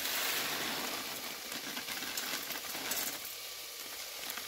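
Dry rice poured into a stainless steel pot of frying onion and garlic: a steady hiss of grains landing, loudest at first and fading over a few seconds, over the light sizzle of the frying.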